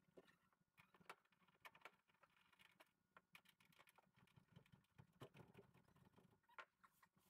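Near silence with faint, scattered clicks and light taps of hand tools and fasteners as someone works under a car's front bumper.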